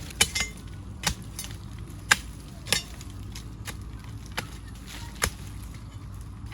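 Hand hoe chopping into hard anthill soil: a series of sharp, uneven strikes, roughly one a second.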